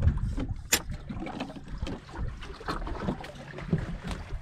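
Short knocks and clicks of a fiberglass deck hatch lid and gear being handled on a boat, the sharpest click about three-quarters of a second in, over a low rumble of wind and water.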